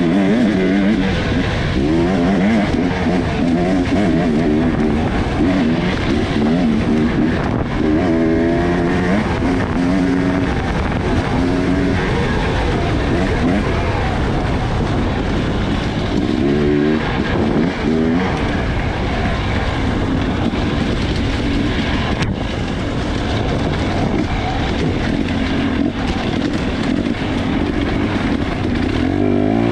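Off-road racing motorcycle engine revving up and down hard as the bike is ridden through the woods, the pitch rising and falling again and again, heard from a camera on the rider's helmet.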